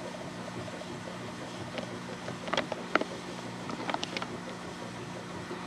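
Steady low machine hum, with a few light knocks or clicks between about two and a half and four seconds in.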